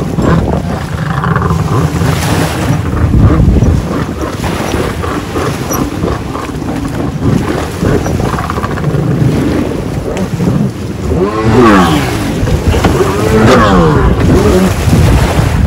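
Jet ski engine running on the water, its pitch sweeping sharply up and down several times in the last few seconds as it is revved, over steady wind rumble on the microphone.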